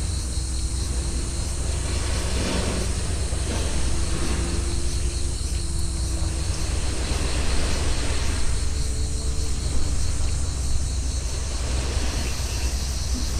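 Wind rumbling on the microphone, steady throughout, with a faint high, evenly pulsing insect trill behind it.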